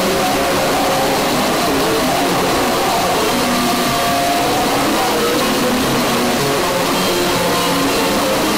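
Experimental noise music: a loud, unbroken wall of hiss and noise, with short wavering pitched tones drifting in and out underneath.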